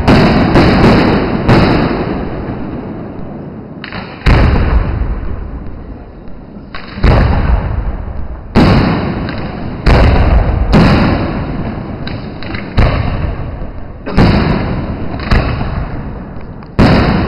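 Aerial firework shells bursting overhead in a display, about a dozen loud booms at uneven intervals. Each boom fades into a long rolling echo before the next.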